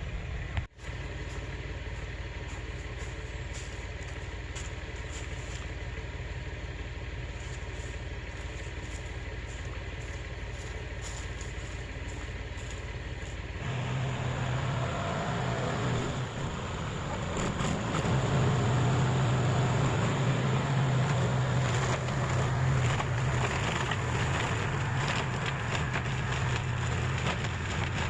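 Heavy farm machine's engine running steadily, then working harder and louder from about halfway through as it pushes into and crushes berry bushes during land clearing.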